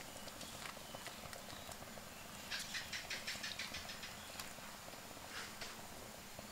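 A pot of tom yum soup at a rolling boil, bubbling and popping faintly. A quick run of light taps, about six a second, comes a little past a third of the way in.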